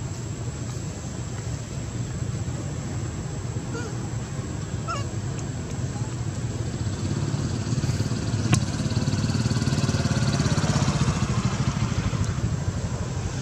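Steady low outdoor background rumble, swelling slightly past the middle, with a few faint short chirps and one sharp click.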